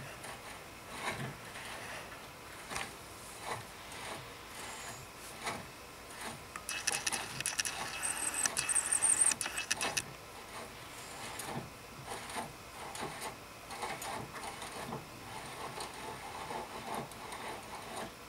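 Outer tie rod end being spun by hand onto the threaded inner tie rod: scattered metal clicks and scraping of the threads, with a faster run of rapid clicking from about seven to ten seconds in.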